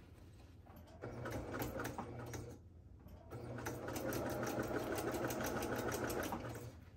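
Electric domestic sewing machine stitching a seam through layered cotton fabric and interfacing. It runs in two goes: a short run about a second in, a brief stop, then a longer steady run that stops just before the end.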